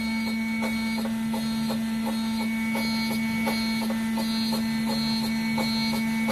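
CNC milling machine running: a steady spindle hum with a regular ticking about three times a second.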